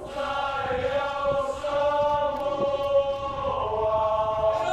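Samoan group of male voices chanting together, holding one long note that moves to a higher pitch near the end.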